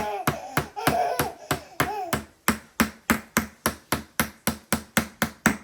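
Rapid repeated hammer strikes on a block of ice, about four a sharp knock a second, chipping at a frozen ice egg. A child's whining voice sounds over the first couple of seconds.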